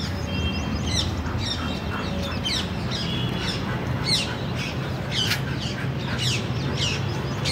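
Birds calling: a quick string of sharp, high chirps, each sweeping downward in pitch, one or two a second, mixed with a few short whistled notes.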